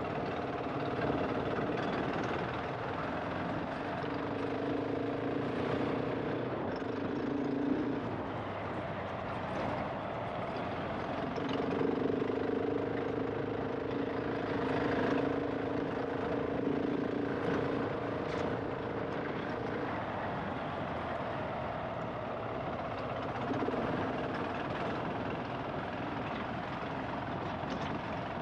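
GasGas ES700 enduro motorcycle's single-cylinder four-stroke engine running as the bike is ridden off-road, its note swelling and holding steady in three long stretches and easing between them, over a constant rush of riding noise.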